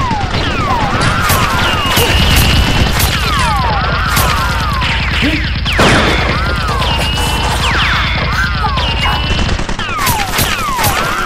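Rapid automatic gunfire sound effects, a continuous stream of shots with repeated short whistling swoops like bullets flying past, over background music.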